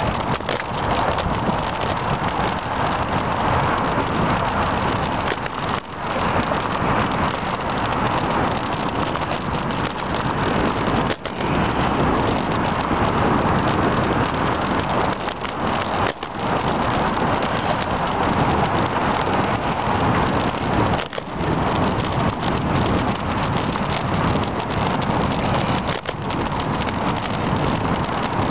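Steady loud rushing of wind across the microphone of a bike-mounted camera while cycling on a wet path, dipping briefly about every five seconds.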